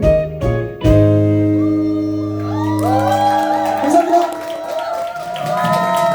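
Live rock band ending a song: short chord stabs, then a held final chord. About three seconds in, a held, bending note comes over it and the audience starts clapping and cheering.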